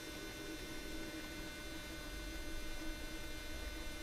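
A faint, steady hum with several thin, unchanging high tones over it.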